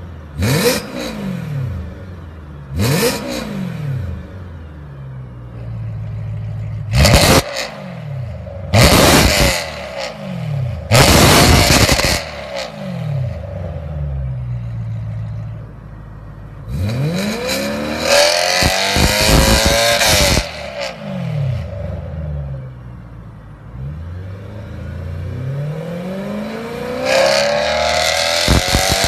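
BMW E92 M3's 4.0-litre V8 through an Armytrix valvetronic exhaust, revved hard with no load: a string of quick, sharp blips that fall straight back to idle. Then a longer rev is held high a little past the middle, and near the end it climbs again to a held high rev.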